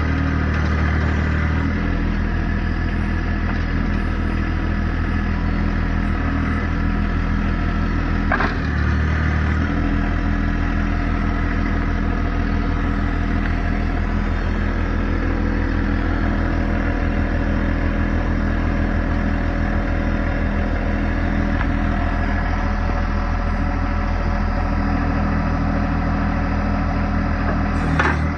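John Deere 2025R compact tractor's three-cylinder diesel engine running steadily, its note shifting briefly about a second in and again around nine seconds. A couple of short sharp clicks sound over it, one around eight seconds and one near the end.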